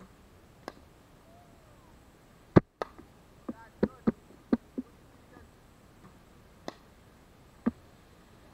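About ten sharp knocks and clicks at irregular intervals, the loudest about two and a half seconds in and a quick cluster of five around the four-second mark; faint bird chirps between them.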